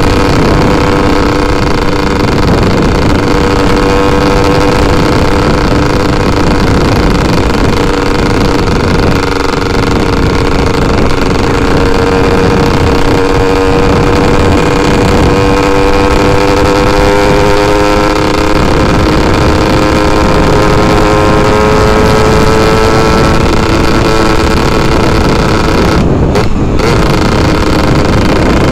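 Yamaha F1ZR's two-stroke single-cylinder engine running under way at cruising speed, its pitch climbing slowly as the bike gathers speed, with a brief break near the end. Wind rushing over the microphone sits under the engine.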